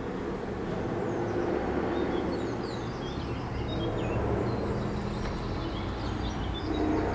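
Small birds chirping in short, scattered high notes over a steady low background rumble.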